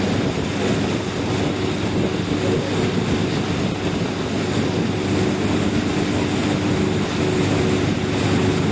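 A boat's engine running steadily under way, with the rush of water churned up along the hull.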